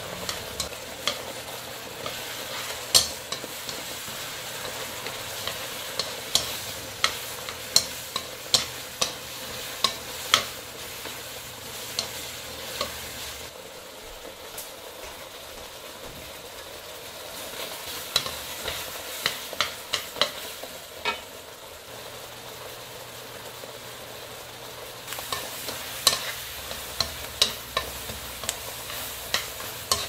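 Sugar syrup boiling and sizzling around ginger slices in a wok over high heat, reducing toward candied ginger, while chopsticks stir and tap against the pan at irregular intervals, pausing for a few seconds midway.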